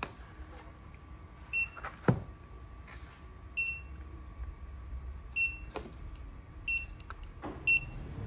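Handheld barcode scanner giving about six short, high beeps as it reads the packages of Hamstick mobile antennas, with a few knocks of the packages being handled on the counter between beeps.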